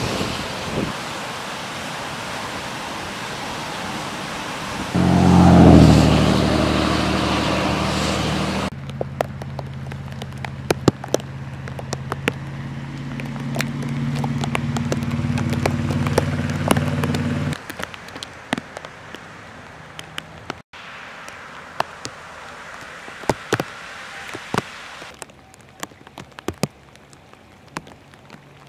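Swollen floodwater rushing past a culvert outlet, then a pickup truck's engine running steadily as it drives through deep water on a flooded road. After that there is light rain with scattered drop ticks.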